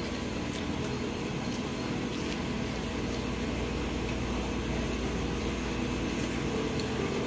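Steady machine hum and hiss of room background noise, with a few faint soft clicks.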